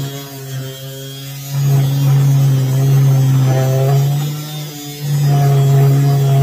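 Small electric detail sander buzzing steadily as it sands a wooden axe handle. The hum gets louder about a second and a half in, drops briefly near the five-second mark, then comes back up.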